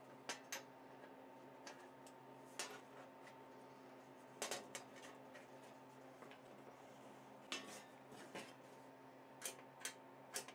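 Small metal parts of a lock's bolt mechanism being handled and set down by hand, giving about ten light, scattered clicks and clinks over a faint steady hum.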